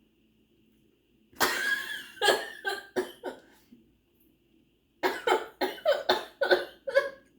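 A person coughing in two fits after swallowing raspberry balsamic vinegar. The first fit starts with a longer harsh cough about a second and a half in and is followed by a few shorter coughs. The second is a quick run of about eight short coughs from about five seconds in.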